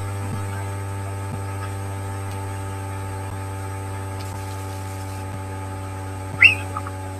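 Steady electrical mains hum: a low drone with a stack of steady higher tones above it, and one short high-pitched sound near the end.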